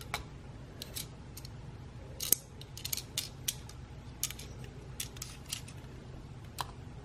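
Light metallic clicks and scrapes of a stainless steel caliper being slid and set against a sewing-machine motor's housing to measure a depth. The clicks come irregularly, several a second at times, with one sharper click a little over two seconds in.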